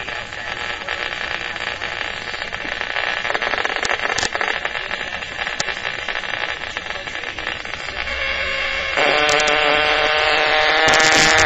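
Electronic hiss and crackle from an RF/microwave detector. About nine seconds in, a louder buzzing alarm tone with many overtones starts and holds: the detector alarming at the field from the ferrite resonant coil.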